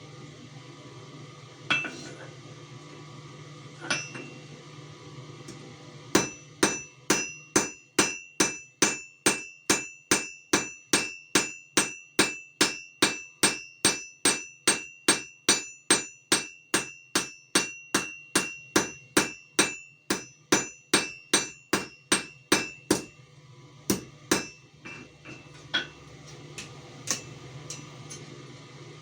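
Forging hammer striking metal on an anvil: a few single blows, then a steady run of ringing blows at about two a second for some seventeen seconds, then a few scattered blows. A steady low hum runs underneath.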